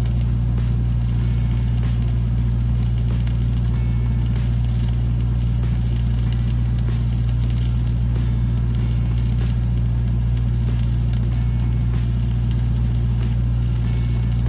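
Red-D-Arc 300D engine-driven welding machine running at a steady engine speed, with the light crackle of a flux-cored welding arc over it.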